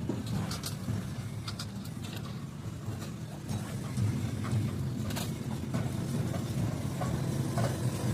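An engine running steadily, with scattered light clicks and clinks over it.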